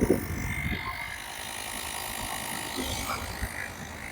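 Portable electric tyre inflator running steadily, its small motor and compressor buzzing as it pumps a car tyre up toward 32 psi.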